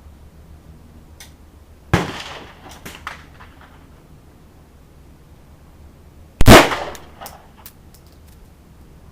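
Two gunshots about four and a half seconds apart, the second much louder, each trailing off in a short echo, with a few faint clicks after.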